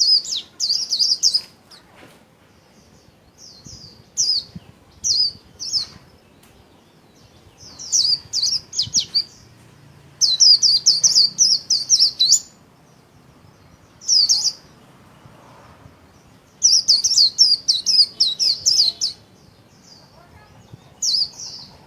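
White-eye (vành khuyên) singing its rapid, high-pitched warbling 'líu' song in bursts of a second or two, repeated every few seconds.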